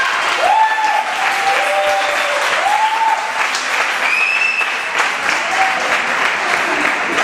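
Audience applauding steadily, with several drawn-out cheering calls from the crowd rising above the clapping, mostly in the first few seconds.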